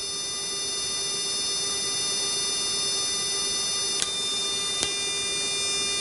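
Steady cockpit hum and whine of a parked Boeing 737-800 with its APU running, several fixed tones held level; two faint clicks about four and five seconds in.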